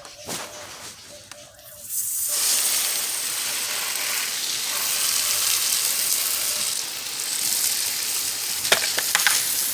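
A steady, loud hiss that starts abruptly about two seconds in, with a few sharp clicks near the end.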